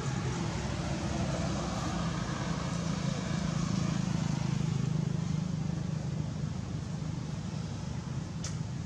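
A steady low motor rumble with no change in pitch, and a single short click near the end.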